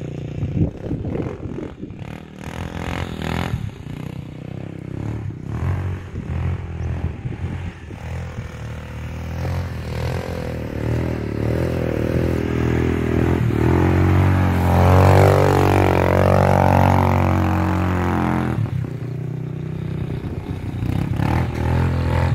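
Quad bike (ATV) engine running and revving as it drifts through snow, its pitch rising and falling. It grows louder toward the middle and is loudest about two-thirds of the way in. Scattered knocks and scrapes come in the first several seconds.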